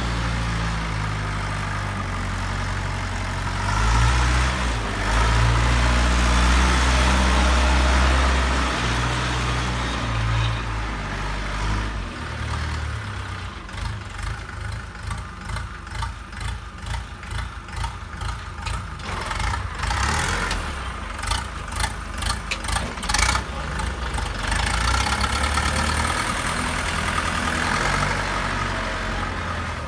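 Luzhong LZ504B 50 hp diesel tractor engine running while the tractor is driven. It is louder about four to eight seconds in, then settles to a lower, rapidly pulsing throb from about twelve seconds on.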